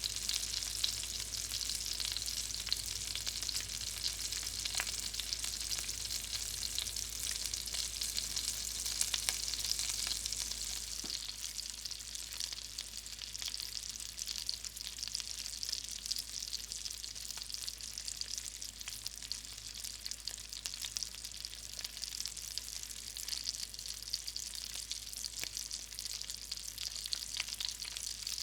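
Hot grease frying: a steady sizzle dense with small crackling pops, slightly easing about a third of the way through.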